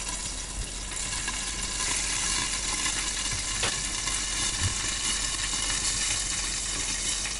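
Frozen pelmeni frying in oil in a frying pan under a glass lid: a steady sizzle that grows a little louder about two seconds in, as water from the still-thawing dumplings cooks off in the hot oil.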